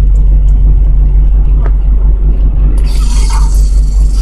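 Road noise in the cabin of a car moving at highway speed: a steady, loud low rumble, joined about three seconds in by a louder hiss.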